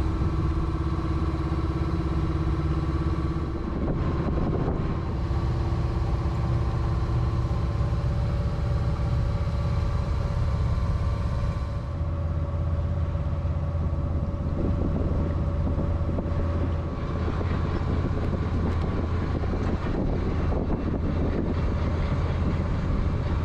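Small sailboat's engine running steadily under way, with a change in its note about halfway through.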